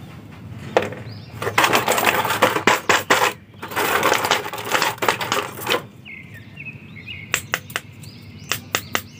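Thin clear plastic packaging crinkling and crackling as action figures are pulled from a blister tray and plastic bag, for about four seconds. Then a run of separate sharp clicks from the plastic and figure being handled.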